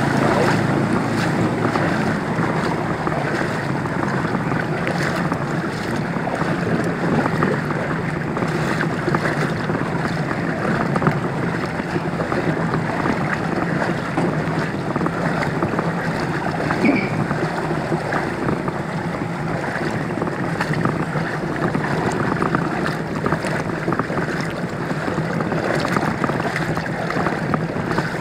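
Floodwater sloshing and splashing steadily as someone wades through a flooded street, a continuous irregular churning of water.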